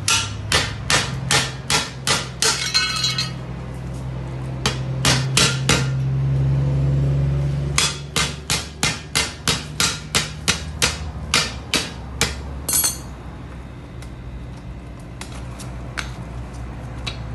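Metal tool hammered against the steel wall of an LP gas cylinder to cut its bottom open: runs of sharp metal strikes, about two a second, with short pauses, some ringing. A steady low hum runs underneath, fading out about halfway.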